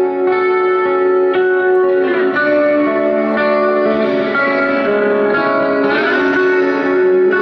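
Live black metal music: slow, sustained electric guitar chords, held and changing every second or two, with a few sliding notes.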